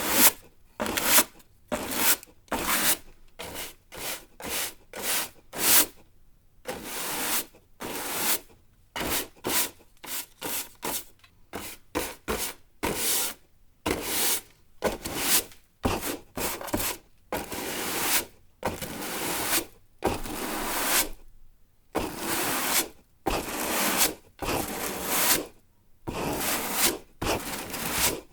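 Broom sweeping a hard floor: repeated bristle swishes, about two strokes a second at first, with some longer strokes later.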